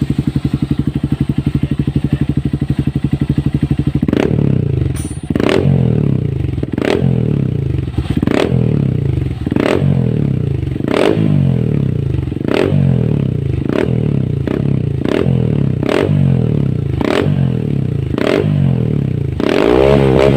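Honda CRF150L's single-cylinder four-stroke engine, fitted with a Yoshimura exhaust, idling steadily, then revved about four seconds in with quick repeated throttle blips a little more than one a second, and a harder rev near the end.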